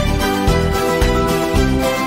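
Background music with a steady beat of about two a second under held melodic tones.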